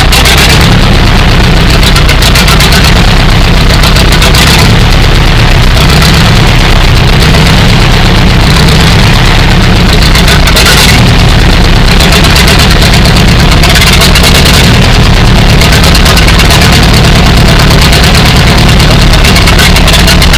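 The Hesselman-licence engine of a 1935 Allis-Chalmers KO crawler tractor running steadily and loudly. It is on its first run after more than 50 years unused.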